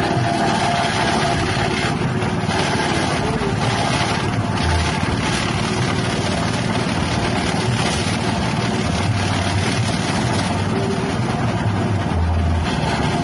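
Small 6.5 HP petrol engine driving a grass chopper machine, running steadily at speed.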